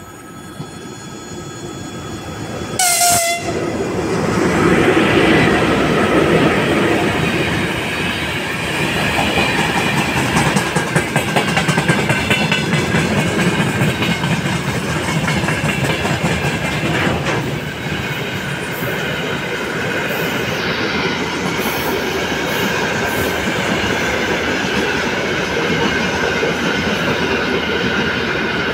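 VL10 electric locomotive sounds a short horn blast about three seconds in as it approaches, then its freight train passes close by: a loud rumble of wheels, growing over the first few seconds, with clickety-clack over the rail joints and a sharp clank about seventeen seconds in.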